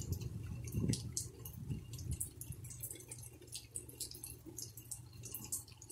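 Light rain coming down: separate raindrops ticking irregularly and close by, over a low steady rumble.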